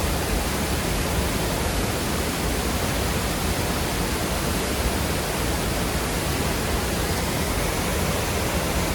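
Waterfall pouring into a fast-moving creek: a steady, even rush of water over rock that does not change.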